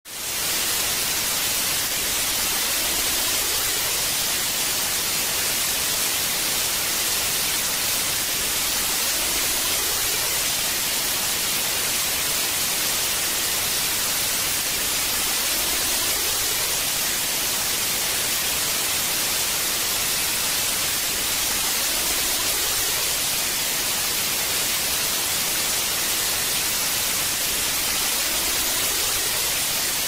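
Television static from a no-signal channel: a steady, even hiss that is strongest in the treble.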